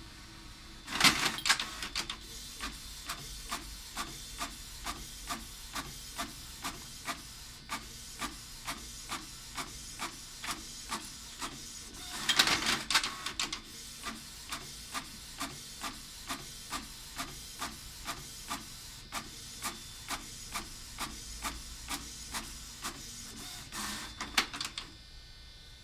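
Canon inkjet printer printing two pages: a louder burst of paper-feed noise about a second in and again about halfway, and between them a steady clicking about twice a second as the print head moves across the page. Another short burst comes near the end as a page finishes.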